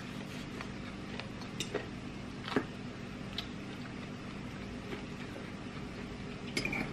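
Eating sounds: scattered mouth clicks and chewing, with a few light clinks and taps of a metal fork against a bowl and plate, the sharpest about halfway through. A steady low hum sits underneath.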